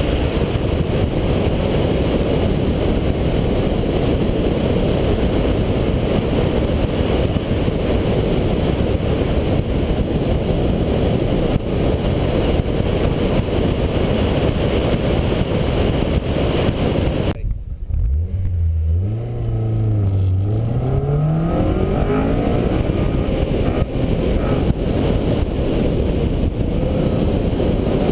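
Car on an autocross run heard from an in-car camera: a loud, steady rush of wind and road noise over the engine. About two-thirds of the way through, the noise drops away suddenly for a moment and the engine is heard revving, its pitch rising and falling a few times, before the rush returns.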